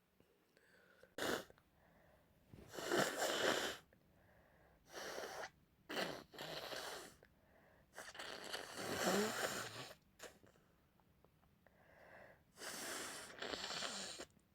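A congested person with a cold blowing their nose into a tissue again and again: about five wet, snotty blows with short pauses between, the longest lasting about two seconds near the middle.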